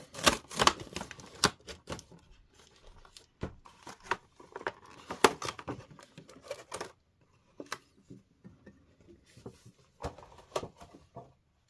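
Plastic blister pack and cardboard card backing being torn and pried apart by hand, with irregular crackling and tearing. The crackling thins out to scattered clicks and rustles about seven seconds in.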